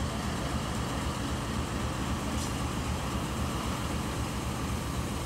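Diesel-electric locomotive engine running, a steady low throb.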